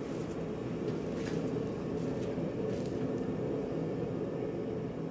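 Steady hum of a running machine in the workshop, with a couple of faint light clicks.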